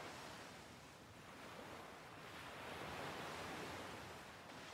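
Faint, steady wash of open sea and wind, swelling a little about three seconds in.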